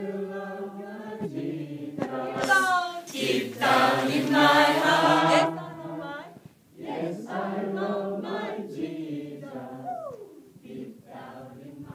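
A group of men and women singing together without instruments, loudest a few seconds in and quieter toward the end.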